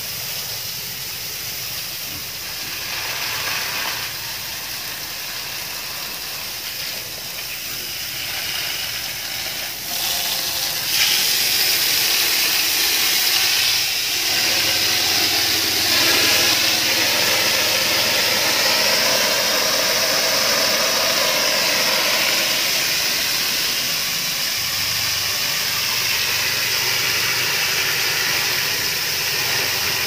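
Water jet from a hose spraying onto a concrete floor and brick wall as a pen is hosed down: a steady hissing splash. It gets louder about ten seconds in and stays loud.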